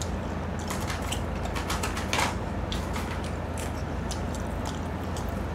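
Scattered light clicks and ticks at irregular intervals over a steady low hum.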